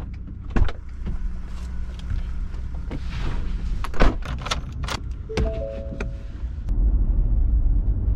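A driver getting into a Ford pickup truck: a string of clicks, knocks and door thunks with keys, over the low steady rumble of the cab, and a brief chime of a few short tones about five seconds in. The low rumble grows louder near the end as the truck is under way on the road.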